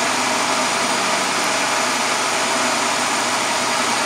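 Vertical milling machine running steadily: an even motor hum under a broad hiss, with no cutting strokes or impacts.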